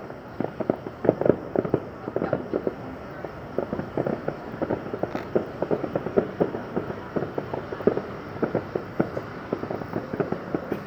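Aerial fireworks going off in a rapid, continuous barrage of bangs and crackling pops, many per second, overlapping with no break.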